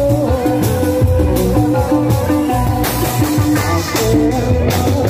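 Loud live procession band music played through a street sound system: a keyboard melody over a repeating accompaniment, with steady drum and cymbal beats.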